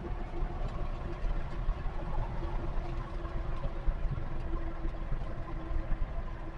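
Heavy trailer truck's diesel engine running steadily under way, with road noise and a faint steady hum.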